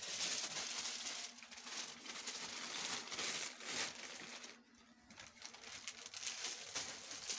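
Plastic wrapping on folded cloth packs crinkling and rustling as they are handled, with a brief lull a little past the middle.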